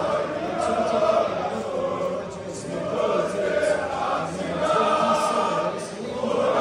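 A large crowd of football supporters singing a chant together in long sung phrases, with short breaths between phrases about two seconds in and again near the end.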